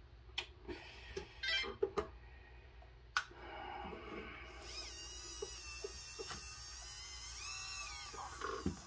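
A few sharp clicks in the first three seconds, then the electric drive of a radio-controlled 1/16 Bruder CAT Delta track loader whines steadily for about four seconds as it drives forward. The pitch rises and falls again near the end.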